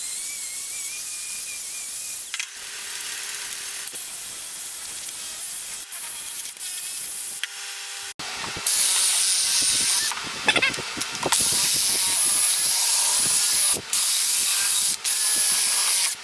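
Abrasive paper on a block rubbed by hand over the rusted cast-iron milling table, a steady scratchy rubbing. After a cut about eight seconds in, a handheld angle grinder works the table's scaled surface much louder, dropping away briefly a few times as it lifts off.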